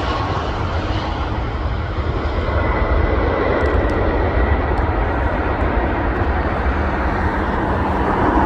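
Boeing 757's twin jet engines at take-off thrust as the airliner lifts off and climbs away: a loud, steady roar with a faint high whine in it.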